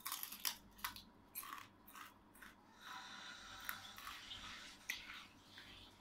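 A person chewing crunchy dried fish close to the microphone: a quick run of crisp crunches in the first three seconds, then a few sparser ones.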